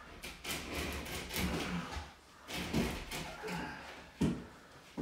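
Large epoxy shower wall panel being manoeuvred by hand, scraping and knocking against the stall walls in irregular bursts, with a sharp bump near the end.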